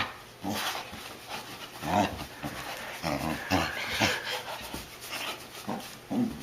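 A dog panting with short, low grumbling sounds in brief separate bursts, the protest of a dog upset after a bath.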